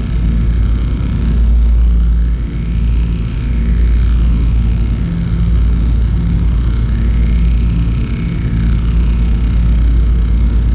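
A loud, deep, steady rumbling drone, with faint higher tones slowly gliding up and down above it.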